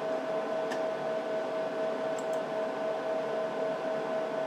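Steady whirring hiss of a running HP 54845A oscilloscope's cooling fans, with a steady mid-pitched hum tone and a couple of faint clicks.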